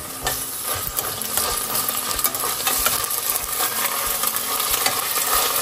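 Ginger-garlic paste and sliced onions frying in hot oil in a pressure cooker, sizzling steadily while being stirred, with short clicks and scrapes from the stirring.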